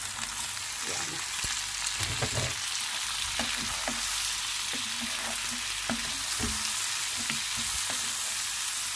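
Raw shrimp sizzling in hot browned butter in a frying pan, a steady hiss that swells as they go in. Scattered knocks and low thuds of a wooden spatula stirring them against the pan, a cluster of them about two seconds in.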